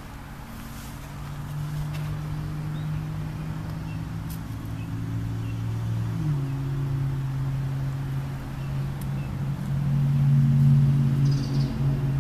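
An engine running steadily with a low hum, its pitch shifting a little about halfway through and growing louder toward the end.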